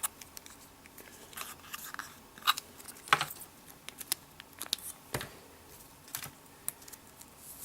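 Hands handling small unboxing packaging: scattered short clicks, taps and rustles, a few of them sharper, as the contents of a small Apple product box are taken out.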